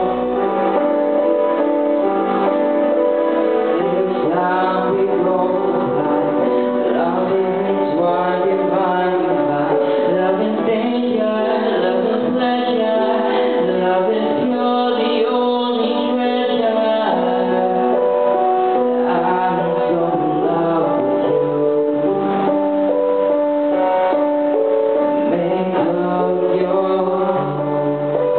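A young man sings a slow ballad into a microphone, amplified over a karaoke backing track with piano and keyboards.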